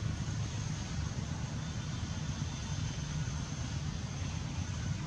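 Steady low rumble with a fainter hiss above it, unchanging throughout.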